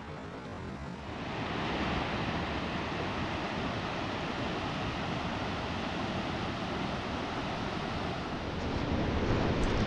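Steady rush of falling water from a waterfall, growing louder about a second in.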